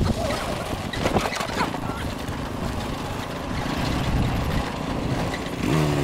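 Small motor scooter running with road and wind rumble during a ride. Near the end, a steady engine hum with a constant pitch sets in.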